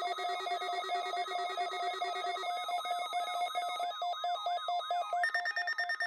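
Several NOAA weather alert radios, a Midland Public Alert receiver among them, sounding their alert alarms for a Required Weekly Test. The beeping and quick repeated chirps overlap, with about six beeps a second. A lower tone drops out partway through, and a higher-pitched beep joins near the end.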